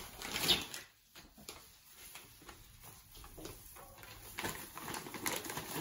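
Clear plastic bags rustling and crinkling as meat is packed into them by hands in plastic gloves. The sound is intermittent, with a sharper crackle about half a second in and a cluster of crackles near the end.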